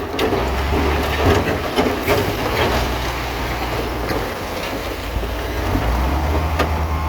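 Crawler bulldozer's diesel engine running, with the steel tracks clanking and knocking. The engine's low drone drops away around four to five seconds in and picks back up about six seconds in.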